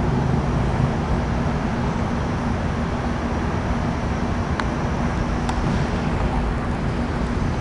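Air conditioner running: a steady fan rush with a constant low hum, and two faint ticks a little over halfway through.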